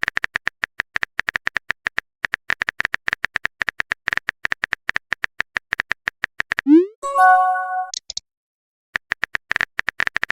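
Phone keyboard typing sound effect: rapid, irregular clicks, then about 6.7 s in a short rising swoosh and a brief tonal chime of a message being sent. The clicks start again near the end.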